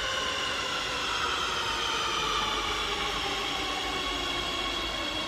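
A Madrid Metro electric train pulls into an underground station. Its motors whine in several tones that slowly fall in pitch as it slows, over a steady rumble of wheels on rail.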